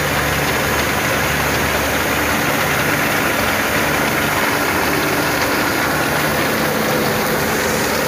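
Engine of a wheat-harvesting machine running steadily while threshed grain pours from its unloading spout onto a heap, a continuous hiss over the engine hum.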